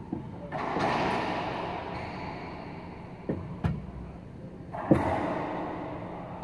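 Racquetball rally: several sharp smacks of the ball off racquets and the court walls, each with a long echo in the enclosed court.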